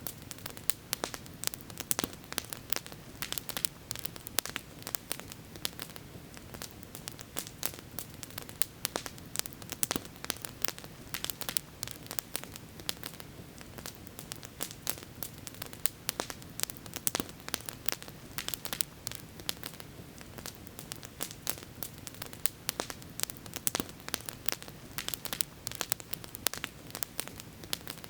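Campfire burning, wood crackling and popping in quick irregular clicks over a steady low rush.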